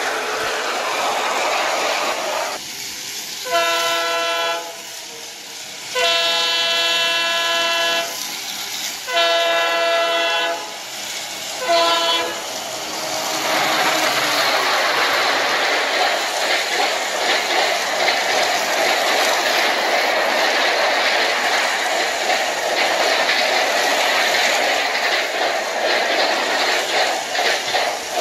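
Toy diesel locomotive's built-in electronic horn sounding four blasts, each a multi-toned chord, the second the longest. After the last blast, a steady rushing clatter sets in as the toy train runs on its plastic track.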